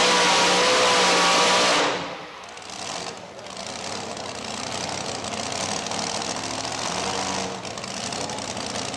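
Two-wheel-drive pulling truck's engine at full throttle dragging the sled, cut back sharply about two seconds in as the pull ends, then running at a steady idle.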